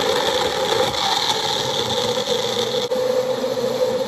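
Magic Bullet blender motor running steadily at full speed, blending ice and frozen fruit. It gives a loud whirring hum, with a brief dip about three seconds in.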